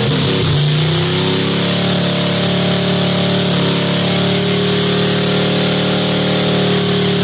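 1955 Chevrolet's engine held at high, steady revs during a burnout, the rear tyres spinning on the concrete floor to warm them. The revs dip and climb back just after the start and fall away briefly near the end.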